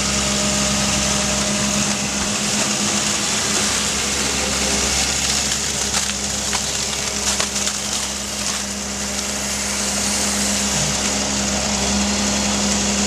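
Doosan amphibious excavator's diesel engine running steadily, with a cluster of sharp clicks and knocks about halfway through.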